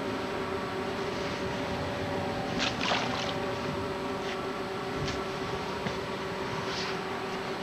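Steady electrical hum of several held tones over hiss, with a few short crackles about three, five and seven seconds in. This is the camcorder's own noise on a soundtrack damaged when the camera got wet.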